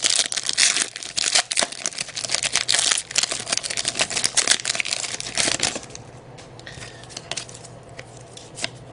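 Crinkling and tearing of a trading-card pack wrapper being opened: a dense crackle for about the first six seconds, then only faint scattered rustles and clicks.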